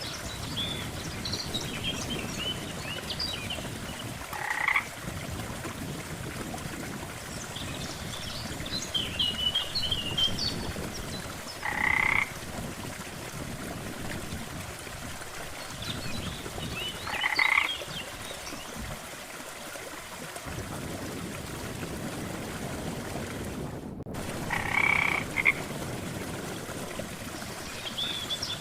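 Frogs croaking at a lake: a loud short croak comes about every six seconds, with fainter, higher chirps in between over a steady background hiss.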